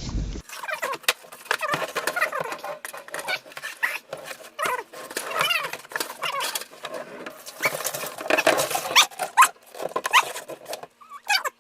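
Animal cries: many overlapping, high wavering calls, with a faint steady hum beneath.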